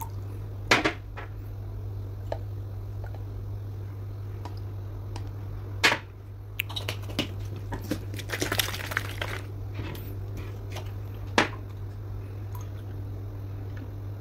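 A plastic water bottle and drinking glasses handled on a hard tabletop: three sharp knocks as glass and bottle are set down, and a stretch of water being poured and sloshed in the middle, over a steady low hum.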